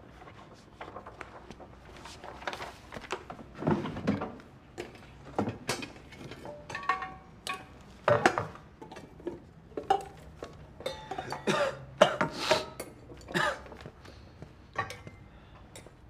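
Irregular clinks and knocks of small hard objects, some leaving a brief ring, coming unevenly through most of the stretch and loudest around the middle.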